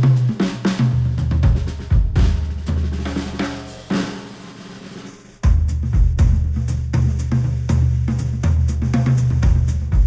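Drum-driven music with a heavy bass line, played back through a studio headphone and picked up by microphones. The drums and bass thin out about four seconds in and come back at full force about a second and a half later.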